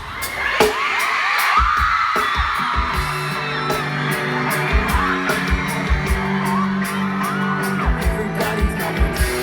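Live pop-rock band playing a song's instrumental intro. High whoops and yells fill the first couple of seconds, then about two and a half seconds in the band comes in with a regular kick drum and sustained bass and guitar notes.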